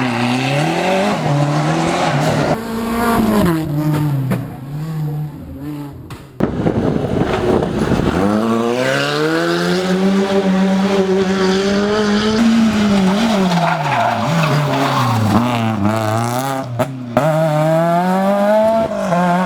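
Rally car engines revving hard, the pitch climbing and dropping through gear changes and lifts, with tyres squealing on the road. One car fades away around four to six seconds in, then the sound cuts suddenly to another car accelerating.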